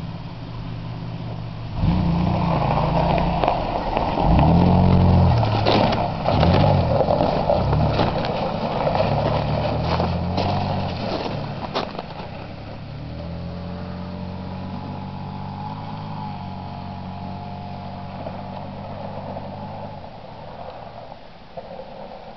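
A 2001 Toyota Tacoma pickup's engine revving up and dropping back several times as the truck pulls away and accelerates, with scattered sharp clicks and knocks. The engine then runs more steadily and fades near the end.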